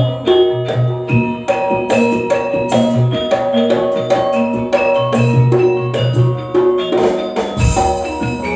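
Instrumental campursari music: gamelan-style metal and mallet percussion playing a stepping melody over a strong bass and a steady drum beat, with a deep low stroke near the end.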